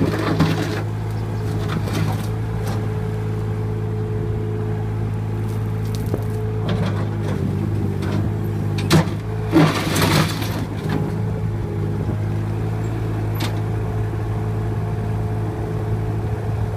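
Terex PT30 compact track loader's diesel engine running at a steady speed as the machine is driven, with a few metallic clanks about halfway through.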